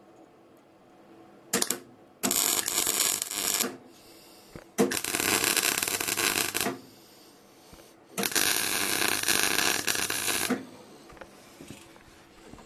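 MIG welder arc welding onto steel plate: a brief strike about one and a half seconds in, then three welds of about one and a half, two and two and a half seconds with short pauses between.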